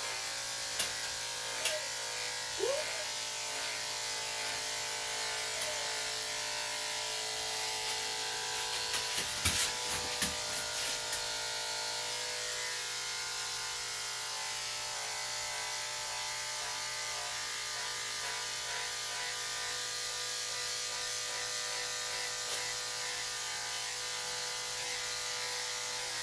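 Electric dog-grooming clippers running with a steady motor hum while trimming the hair around a dog's ears. A cluster of sharp clicks and knocks comes about nine to eleven seconds in.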